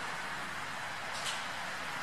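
Steady hiss of outdoor background noise, with one short high tick a little over a second in.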